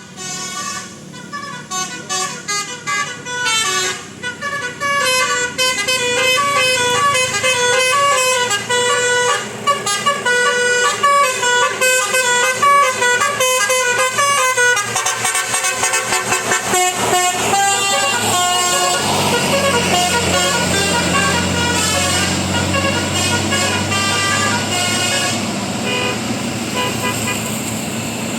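Bus 'telolet' horn, a multi-trumpet air horn playing a quick melody of short notes that jump in pitch for about fifteen seconds. After that the tune gives way to steadier vehicle noise.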